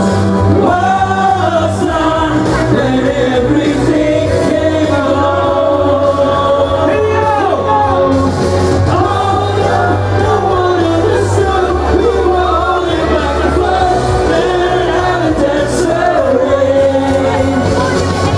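Amplified pop song sung live by male singers into handheld microphones over music with a steady bass line.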